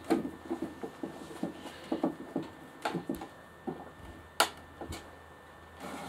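Hand screwdriver driving a wood screw into a pine nest-box roof: a run of short, irregular creaks and clicks as the screw is turned in, followed by two sharp knocks about four and a half and five seconds in.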